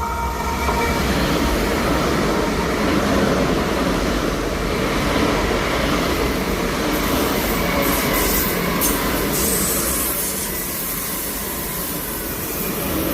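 Train running along the track, a steady loud rumble of wheels on rails, with a brief high screech about two-thirds of the way through.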